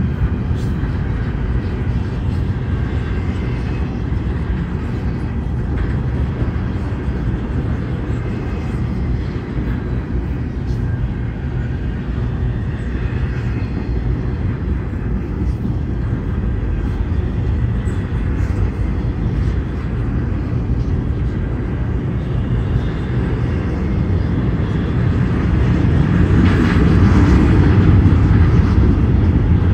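Double-stack intermodal freight train rolling past: a steady low rumble of well-car wheels on the rails with a few sharp clicks, growing louder and brighter near the end.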